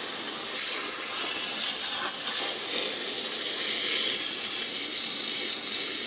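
Water from a garden hose pouring steadily into the plastic wash tub of a twin-tub portable washing machine, filling it over a load of towels.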